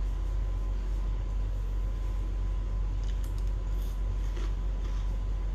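Steady low hum with a faint steady tone above it, and a few faint clicks and crunches of cereal being eaten with a spoon from a bowl about halfway through.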